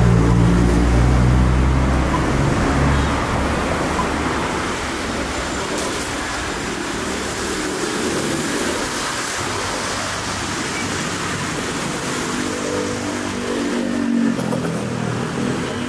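Steady city street traffic noise, with a motor vehicle's engine running close by for the first few seconds.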